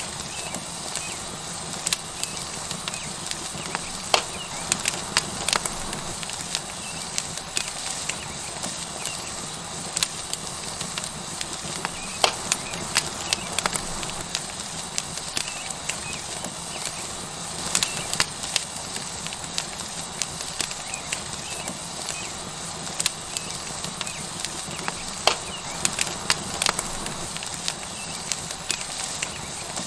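Tomahawk steak sizzling on a hot rock over a wood fire: a steady hiss with frequent sharp crackles and pops from the burning wood.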